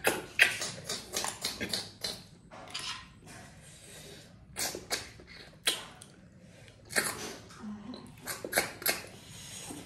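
Close-up eating sounds of small snails in curry being sucked from their shells by mouth: sharp slurps and sucks in quick clusters with short pauses between.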